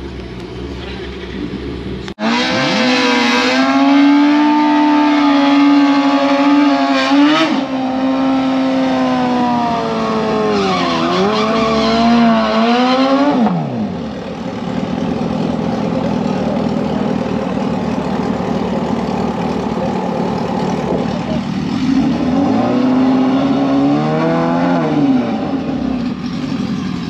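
Drag-race sportbike engine revved hard and held at high revs for several seconds, dipping and climbing again before cutting off; later a shorter rev up and back down.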